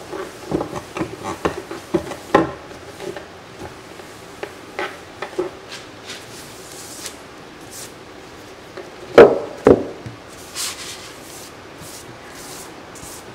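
Paper towel in a gloved hand rubbing along the edge of a freshly resin-coated wooden panel, a quick run of short wiping strokes with light taps. About nine seconds in, two loud knocks about half a second apart as the wooden panel is moved off its plastic painter's pyramids, followed by a few short rustles.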